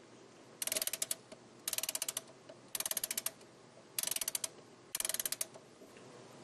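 Clockwork wind-up key being turned in five strokes, each a quick run of ratchet clicks lasting under a second, about a second apart.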